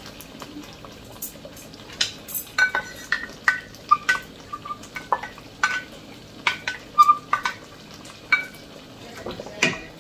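A pot of soup being stirred: a quick series of light knocks and clinks against the pot, several with a short ring, over a low simmering hiss.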